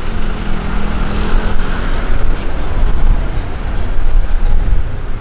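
Road traffic noise: a steady wash of vehicle sound with a strong low rumble, and a low engine hum that fades out about two seconds in.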